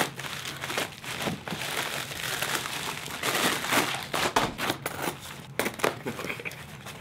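Plastic mailing envelope crinkling and rustling as it is pulled open and a small cardboard box is taken out, with many small sharp crackles; the rustling eases off near the end as the box is handled.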